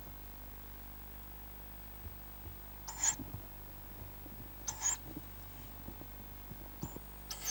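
Tawny owl chicks giving short, hoarse, hissing begging calls, a few of them about two seconds apart, with faint rustling and knocking as the birds shift in the nest box.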